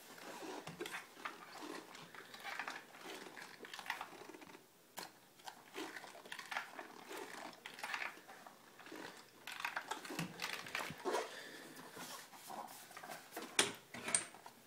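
Handling noise from a Traxxas E-Revo RC truck being turned over in the hands: irregular clicks, light knocks and rustling of its plastic chassis and suspension parts, with one sharper knock near the end.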